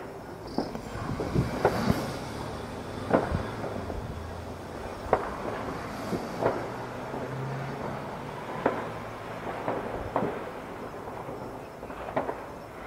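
Fireworks display bursting: irregular bangs, about one every second or two, over a steady background rumble and crackle.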